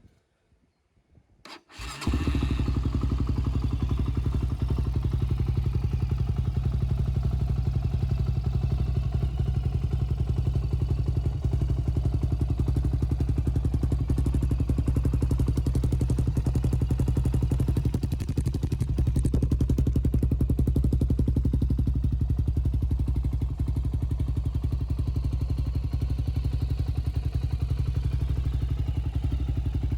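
Freshly rebuilt 2007 Honda TRX400EX's single-cylinder four-stroke engine idling steadily, coming in abruptly about two seconds in after near silence.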